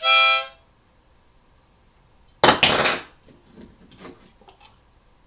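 A single harmonica note held for about half a second, the last of three. About two and a half seconds in comes a loud, sudden crash and clatter, then a few smaller knocks and rattles, as of someone stumbling into things.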